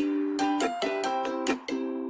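Background music: a light plucked-string tune of short notes, one after another.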